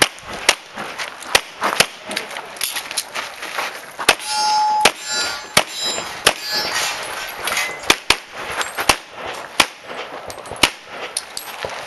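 A competitor's handgun firing about a dozen shots at uneven spacing during a timed stage, with steel targets ringing as they are hit, most clearly between about four and five seconds in.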